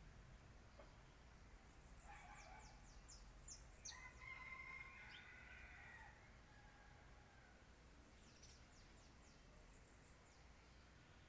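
Faint rooster crowing once, its long held note about four seconds in. Small birds give quick high chirps around it, twice in short runs.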